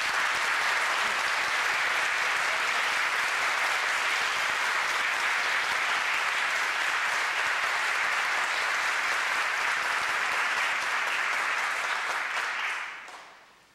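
Audience applauding: steady, dense clapping that dies away near the end.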